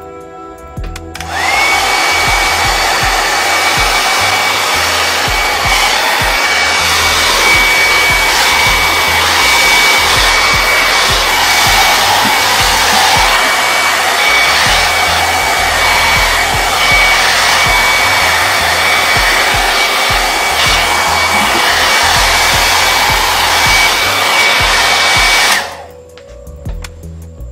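Hand-held hair dryer switched on about a second in and blowing steadily over a circuit board, a loud rush of air with a steady high whine from its motor. It is switched off abruptly about two seconds before the end.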